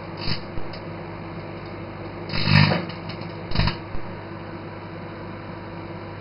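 Microwave oven running with a steady hum, broken by several short crackling bursts from the CD arcing inside, the loudest about two and a half seconds in.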